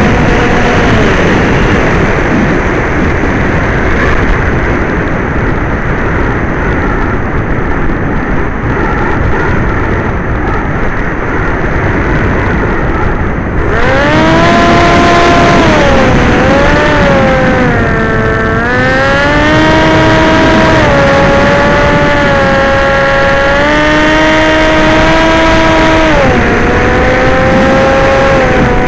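RC aircraft motor and propeller whining under heavy wind rush on the onboard microphone. For the first half the rush of wind dominates. About halfway through a strong motor whine comes up and keeps rising and falling in pitch as the throttle changes.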